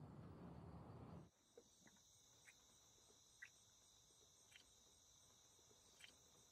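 A low steady rush of outdoor ambience cuts off abruptly about a second in. After it comes a faint, steady high trill of crickets, with a few soft single chirps about a second apart.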